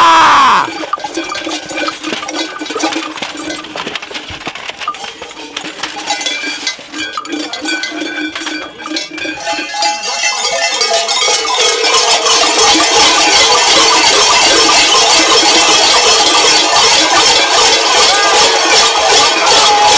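Large Krampus cowbells clanging and jangling as costumed Krampus move about. The clanging is sparse at first and becomes louder and denser about ten seconds in, a steady rhythmic ringing of many bells. It opens with a loud falling tone that stops about half a second in.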